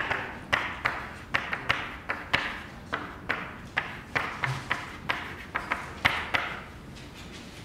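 Chalk writing on a blackboard: a quick series of sharp taps and short scrapes, about two or three a second, as each letter is struck and drawn. The taps stop about a second before the end.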